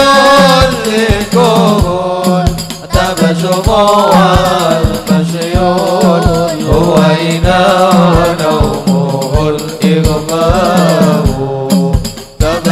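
Hadroh ensemble playing sholawat: a melismatic sung melody in Arabic over frame drums and a deep bass drum beating steadily.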